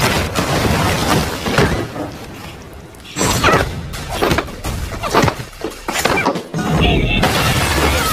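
Film fight-scene soundtrack: music under a run of blows, thuds and crashes from hand-to-hand fighting, with glass shattering near the end.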